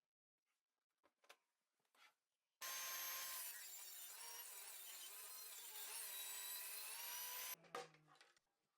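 A woodworking power tool running and cutting wood for about five seconds, starting and cutting off suddenly. A few faint clicks come before it, and a knock follows just after it stops.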